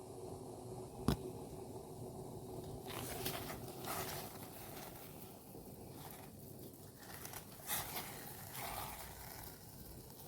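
Faint handling noises while dried banana leaves and ginger are boiled: one sharp click about a second in, then scattered scrapes and rustles over a low steady hum.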